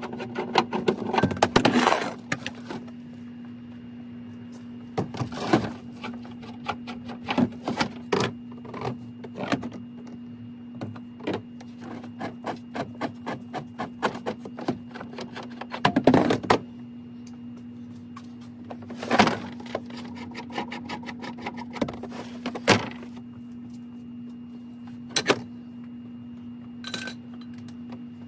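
Steel plumbing-pipe legs being pulled from a plywood sleeping platform and set down, with metallic clanks and knocks as the platform is folded up. The clatter comes in irregular bursts every few seconds over a steady low hum.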